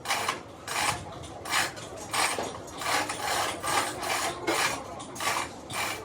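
Rhythmic rasping strokes of hand abrasive work, a scrape repeated about one and a half times a second.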